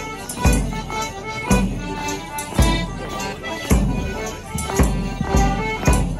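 A live morris band playing a folk dance tune, with a drum beat about once a second and a jingling on the off-beats.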